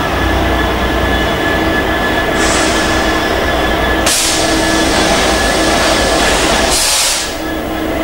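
Freightliner Class 66 diesel locomotive with its two-stroke V12 running, drawing a container train slowly past while slowing to stop at a red signal. A low engine rumble and a steady whine carry on throughout, and three short bursts of high hissing come a little over two seconds in, at about four seconds and near the end.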